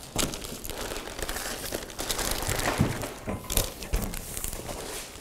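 Plastic packaging wrap crinkling and rustling as a large display panel is lifted out of its box, with a few knocks.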